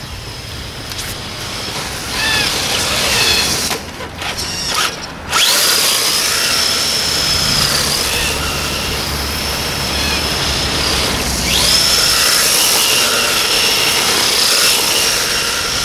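Radio-controlled drift car driving on concrete, its motor giving a high-pitched whine that climbs sharply about five seconds in, holds, drops away, and climbs and holds again from about twelve seconds, over tyre noise.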